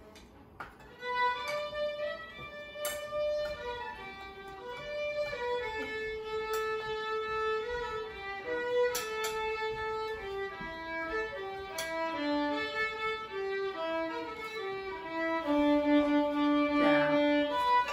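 Background music: a slow melody on a bowed string instrument such as a violin, coming in about a second in.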